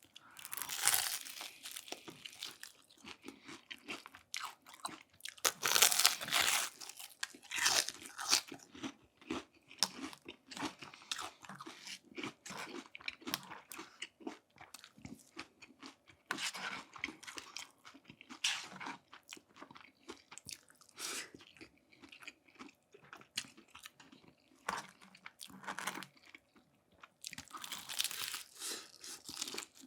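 Close-miked eating: crunchy food being bitten and chewed, with irregular bursts of crunching and quieter chewing between them.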